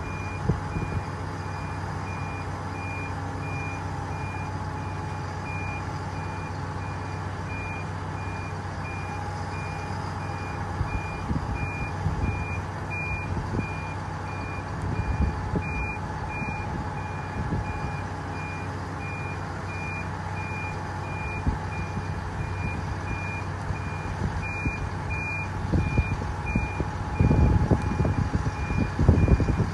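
Vehicle reversing alarm beeping steadily, a single repeated tone, over a machine's engine running with a steady low hum. Louder low rumbling comes in near the end.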